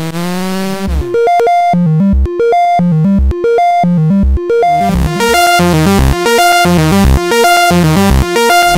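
MiniRude monophonic software synth playing a held note that dips in pitch about a second in. It then breaks into a fast repeating pattern of short staccato notes jumping between a low bass note and higher notes, which turns brighter and buzzier about five seconds in.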